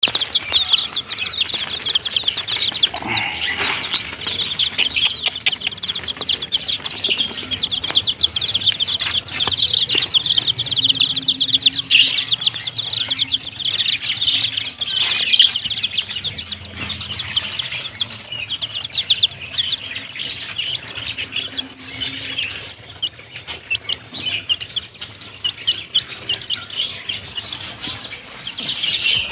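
A group of chickens' chicks peeping continuously, many short, falling, high-pitched peeps overlapping.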